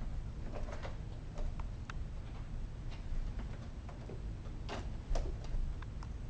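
Kittens moving about on a cat tree: light, irregular clicks and taps of paws and claws, one sharper tap a little past the middle, over a low steady rumble.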